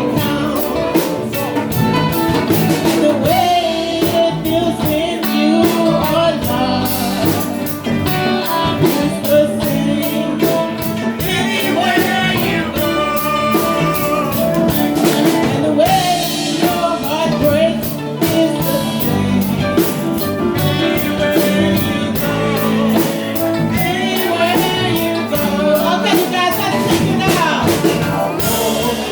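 A song: a singing voice over guitar and a steady drum beat.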